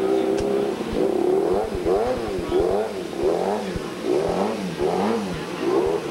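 Race motorcycle engine held at a steady idle for a moment, then blipped over and over, its pitch rising and falling about twice a second.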